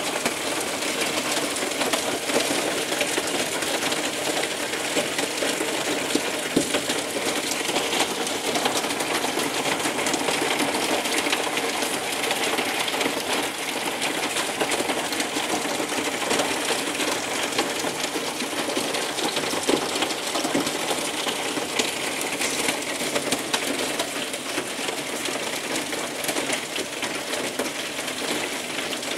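Hail and rain pelting down in a heavy storm: a dense, steady patter of countless small hard impacts, easing slightly near the end.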